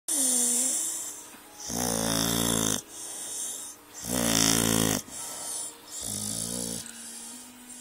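Pit bull snoring: three long snores about two seconds apart, the last one softer.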